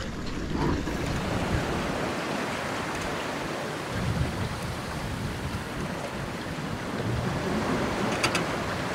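Steady rush of wind and sea water heard from the deck of a sailboat under way, with wind rumbling on the microphone.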